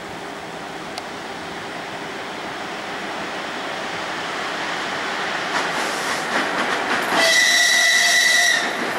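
ChS7 electric locomotive and its passenger train approaching, the rolling noise growing louder, with wheels clicking over rail joints from about five and a half seconds in. Near the end the locomotive sounds one high-pitched warning signal lasting about a second and a half.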